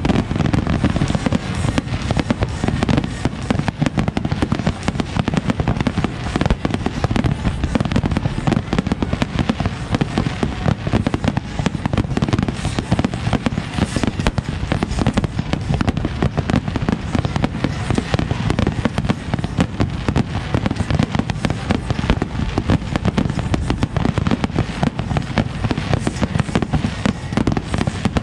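Fireworks display in a dense barrage: aerial shells bursting and crackling loudly in rapid, overlapping succession, with no let-up.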